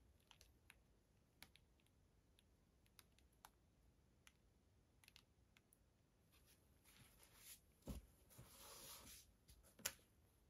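Quiet handling noise from a wet, paint-covered canvas being tilted in gloved hands: scattered faint ticks and taps, a soft rustle from about seven to nine and a half seconds in, and one sharper tap near the end.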